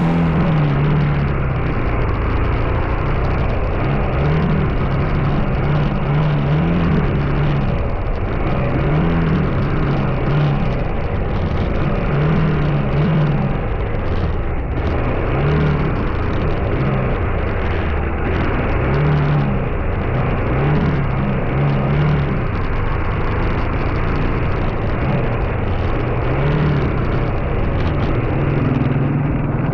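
Vehicle driving along a road: steady engine and road noise, with a low engine hum that rises and falls as the speed changes.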